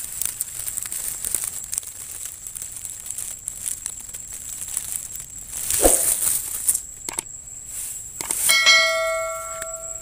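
Dry grass and nest material rustling and crackling as hands push through it. About a second and a half before the end, a bell-like ding rings out clearly and dies away: a subscribe-button notification sound effect.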